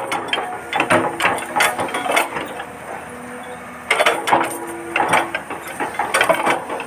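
Huina 1593 RC excavator's small electric gear motors whining as it works, with bursts of clicking and scraping as the bucket digs into sand. There are several bursts in the first two seconds and a steadier stretch in the middle, then more bursts from about four seconds in.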